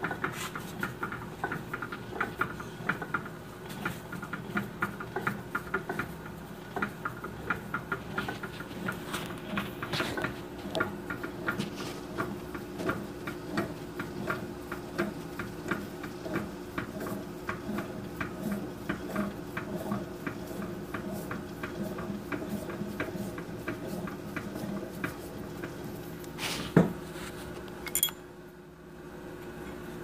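Milling machine running while holes are cut in a brass boiler flange: a steady motor hum with irregular ticking and clicking from the cutting tool and chips. A sharp knock near the end, then a lighter click.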